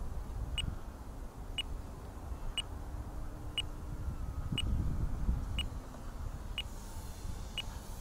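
A short, high electronic beep repeating steadily about once a second, over low wind rumble on the microphone that swells around the middle.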